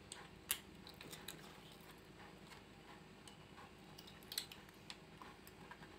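Knife blade worked slowly around the edges of set gelatin jelly in a plastic container, loosening it: faint, scattered clicks and scrapes as the blade knocks against the plastic sides. The sharpest clicks come about half a second in and again a little after four seconds.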